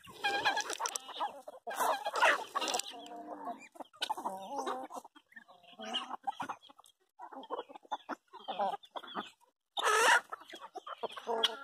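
A flock of chickens clucking and calling while pecking at scattered grain, with a louder call about ten seconds in.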